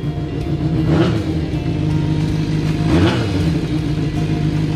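Kawasaki Zephyr 400χ's air-cooled inline-four engine running at idle, with two brief rises in revs about a second in and about three seconds in. It is running on a freshly fitted battery after a no-start.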